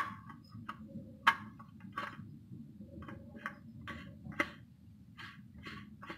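Irregular light clicks and taps of a new STP spin-on oil filter being handled and lined up against the engine's oil filter mount, with a few sharper clicks standing out: one right at the start, others about a second in, two seconds in and four seconds in.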